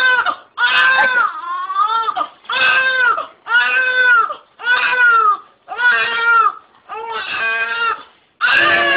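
Newborn baby crying in a run of loud wails, about one a second, each cry rising and then falling in pitch, with brief breaths between them.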